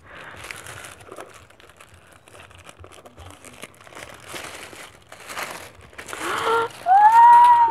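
Purple tissue paper crinkling and tearing in scattered rustles as a wrapped book is unwrapped by hand. Near the end a woman's voice gives one loud, high-pitched excited squeal.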